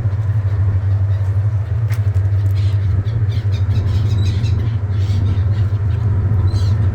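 A steady, loud low engine drone runs throughout, with faint, short high seagull cries now and then.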